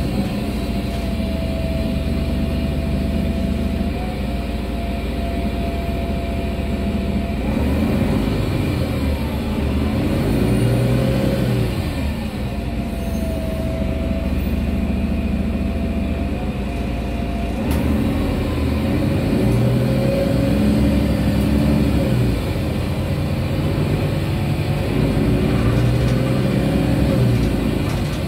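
Mercedes-Benz O345 Conecto city bus heard from inside the passenger cabin: the engine rumbles steadily, and three times its pitch rises and falls back as the bus pulls away and speeds up. Between these, a steady whine holds at one pitch.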